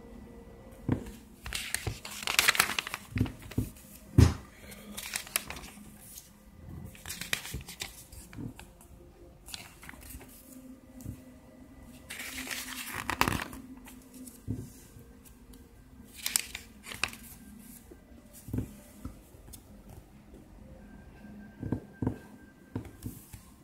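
Pages of a paper IKEA catalogue being turned by hand, each turn a brief rustle and crinkle of paper, several times over, with a few sharp knocks from handling it.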